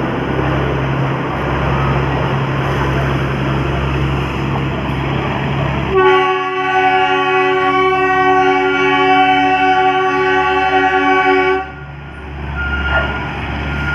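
Darjeeling Himalayan Railway toy train running with a steady rumble. About six seconds in it sounds one long horn blast of about five and a half seconds, which cuts off sharply.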